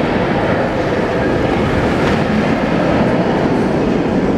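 Steady rain falling: an even rushing noise with a low rumble beneath it.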